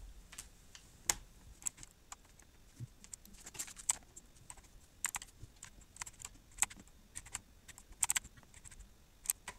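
Keystrokes on a computer keyboard: irregular sharp clicks, some in quick pairs and clusters, as numbers are typed into a spreadsheet one after another.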